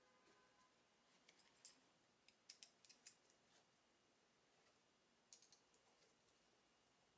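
Faint, sharp clicks from small handwork in three short clusters, about one, two and a half and five seconds in, over near silence.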